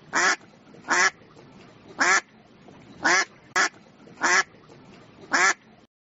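A duck quacking in a series of short, harsh quacks, seven in all at roughly one a second, over a faint steady background hiss.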